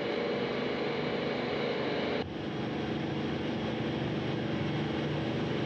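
Steady mechanical hum with outdoor noise from the Soyuz launch pad machinery as the service gantry arms are moved, shifting abruptly in tone and dropping slightly in level about two seconds in.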